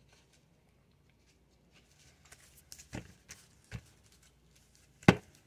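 Tarot deck being picked up and squared in the hands: quiet flicks and taps of the cards from about two seconds in, then one sharp knock near the end.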